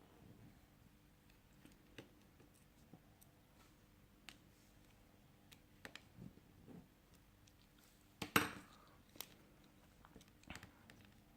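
Faint scattered clicks and taps of small metal repair tools and tiny screws on a smartphone's frame, with one louder clatter a little past eight seconds in.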